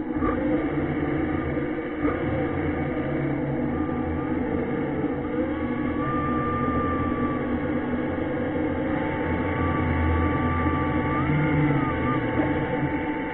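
An underwater ROV's electric thruster motors running, heard through the water as a steady low hum with thin whining tones that drift up and down in pitch as the thrusters change speed.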